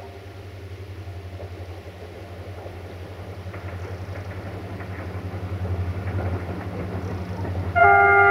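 Diesel locomotive hauling passenger coaches approaches, its engine's low rumble growing louder; near the end its horn starts sounding a loud chord of several tones.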